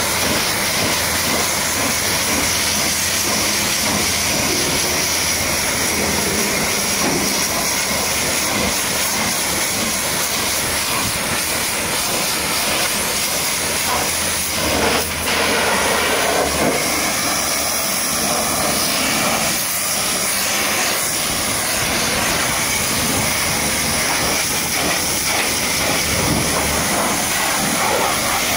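High-pressure washer jet spraying water onto a muddy truck, a loud steady hiss with a brief break about halfway through.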